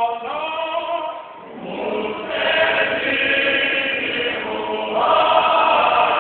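Choir singing a gospel song, several voices together. The singing drops away briefly about a second in, then swells back.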